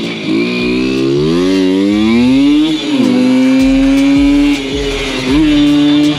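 Simson moped's two-stroke single-cylinder engine revving hard. Its pitch climbs steadily over the first few seconds, dips briefly, then holds high and steady. The throttle closes, and near the end it is opened again for a short burst.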